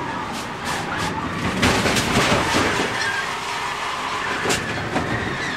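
In-car audio from a NASCAR Nationwide Series stock car at racing speed: loud engine and chassis rattle, with a few sharp clicks.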